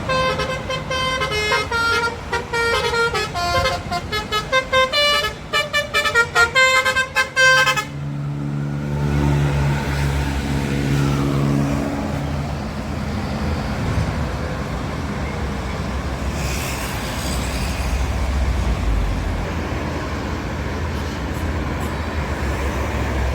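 Basuri 'telolet' multi-tone bus horn playing a fast tune of short toots for about eight seconds, then a bus engine drones by and fades, leaving steady traffic rumble.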